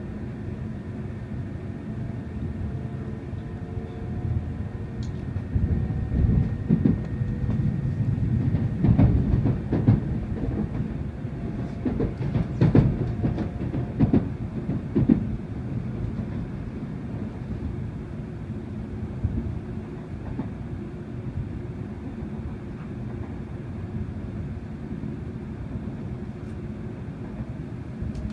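Hikari Shinkansen train running, heard from inside a passenger car: a steady low rumble, with a stretch of louder clattering knocks in the middle as the wheels run over rail joints and points.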